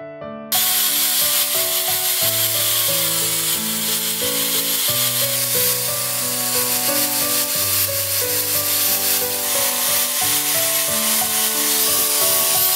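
Angle grinder with a sanding disc running against a wooden slingshot handle: a loud hiss with a thin, steady high whine, starting abruptly about half a second in.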